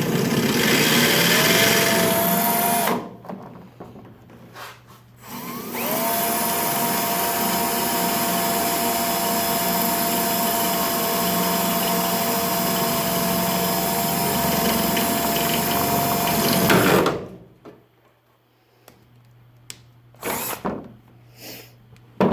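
Electric drill boring into the center of a stripped Phillips screw head, to drill the screw out. It runs twice: a short spin-up of about three seconds, then after a pause with a few clicks, a steady run of about eleven seconds that stops abruptly, followed by a few light knocks.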